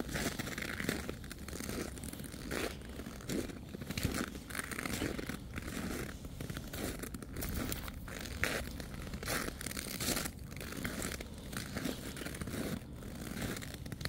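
Footsteps crunching in snow at a steady walking pace, one crunch after another with no break.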